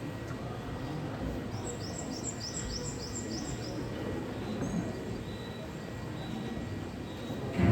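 Steady low rumbling background with a quick run of about eight high, falling, bird-like chirps a couple of seconds in; loud music starts right at the end.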